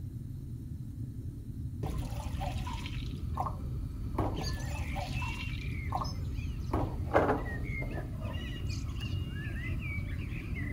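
Milk pouring from a jug into a stone-coated frying pan, starting about two seconds in, with a few drips and splashes. Birds chirp in the background.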